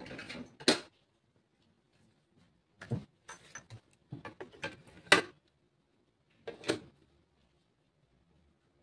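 Plastic clicks and clacks of a cassette tape being handled and loaded into the cassette deck of a National RX-5145F boombox, with the cassette door clicking shut. The clicks come irregularly in a few clusters, the sharpest about five seconds in.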